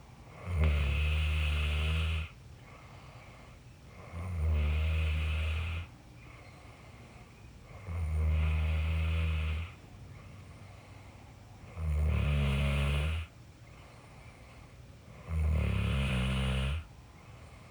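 A person snoring with slow, regular breathing: five long, rumbling snores, each about a second and a half long and roughly every four seconds, over a faint steady background.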